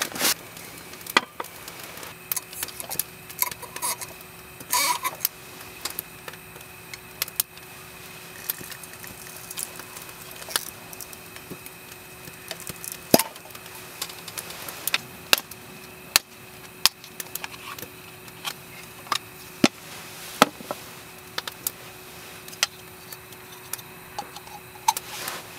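Hands opening a wine bottle with a corkscrew and handling a wine glass on a wooden camp table: scattered sharp clicks, taps and knocks over a faint steady hum.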